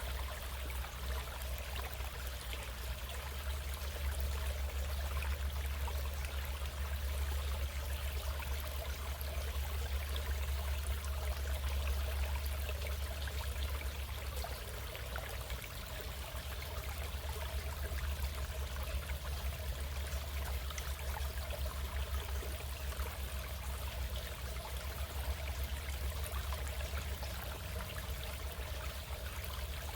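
Stream water running steadily over its bed, with a constant low rumble underneath.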